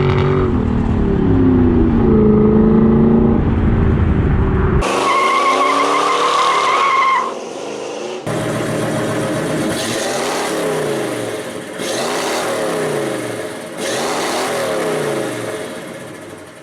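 Car engine revving in a string of short clips cut hard together: first revs gliding up and down, then a high steady squeal for about two seconds, then a run of rises and falls about every two seconds.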